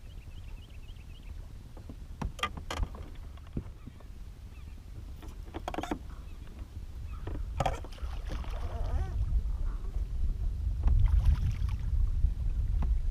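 Low rumble of wind on the microphone, growing stronger in the second half, with a few sharp knocks and clicks from handling gear in a fishing boat.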